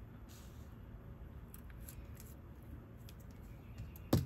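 Small jewelry pieces being handled on a tabletop: faint scattered clicks and a brief soft rub, then one sharp knock near the end as something is set down.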